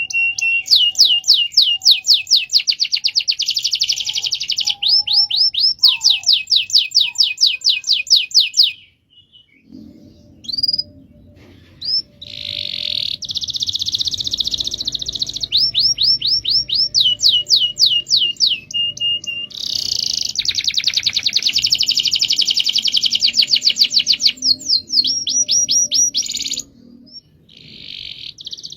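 Domestic canary singing a long song of rolls: fast runs of repeated notes at about ten a second, alternating with denser, buzzier trills. There is a brief pause about nine seconds in.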